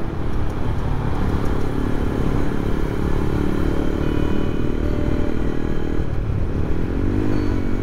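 Motorcycle riding at road speed: steady engine drone with wind and road noise. About seven seconds in, a brief tone rises and falls.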